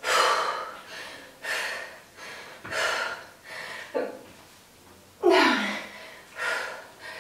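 A woman breathing hard with exertion during dumbbell lunges: quick, forceful breaths about once a second, one of them voiced with a falling pitch about five seconds in.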